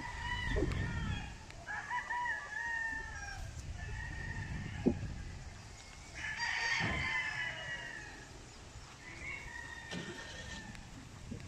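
Gamefowl roosters crowing one after another, about five crows, the loudest about two-thirds of the way through. A few light knocks come in between.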